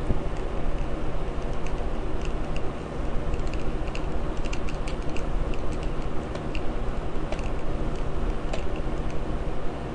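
Light, irregular clicks and ticks of a small screwdriver working out the tiny screws that hold a Dell Inspiron 1525 laptop's keyboard, over a steady low hum.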